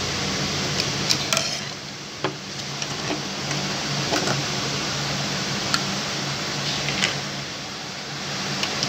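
Scattered small metal clicks and taps as a screwdriver works the presser-foot screw and the gathering foot is lifted off an industrial lockstitch sewing machine's presser bar, over a steady low hum.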